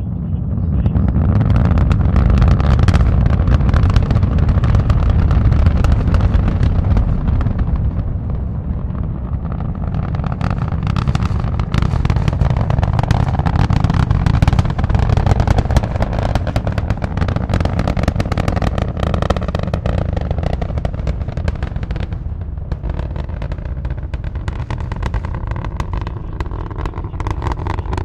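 Space Shuttle Columbia's launch noise heard from the distant viewing area: the deep rumble of the solid rocket boosters and main engines, swelling over the first two seconds, shot through with sharp crackling pops.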